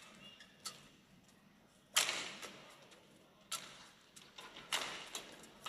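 Badminton rally: sharp cracks of rackets striking the shuttlecock, the loudest about two seconds in and twice more after, each echoing briefly, with lighter ticks between.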